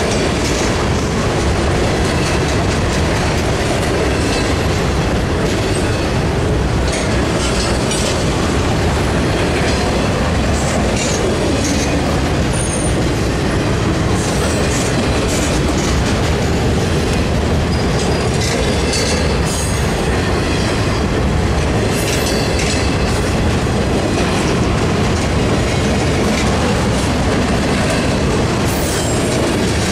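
Freight train of enclosed autorack cars rolling steadily past at a grade crossing: a continuous rumble and clatter of steel wheels over the rails, with a few brief high wheel squeals scattered through.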